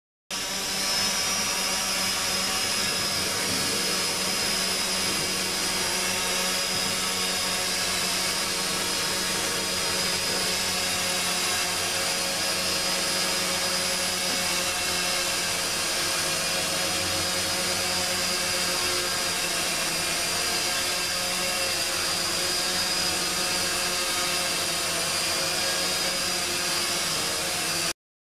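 Small quadcopter drone's electric motors and propellers whining at a steady speed, a high-pitched buzz with several steady tones that cuts off abruptly near the end.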